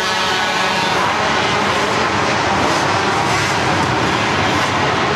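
Several mini quad engines running as the quads race around the dirt track. A single engine's buzzing note stands out until about a second in, then blends into a dense mix of engines.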